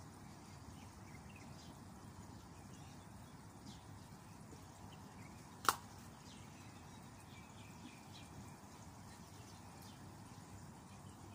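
Faint, steady outdoor background noise, broken once about halfway through by a single short, sharp squeak.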